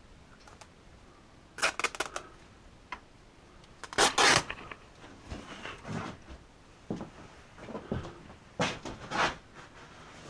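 Scattered knocks, clicks and rustling of things being handled, in three louder clusters about a second and a half in, about four seconds in and near the end.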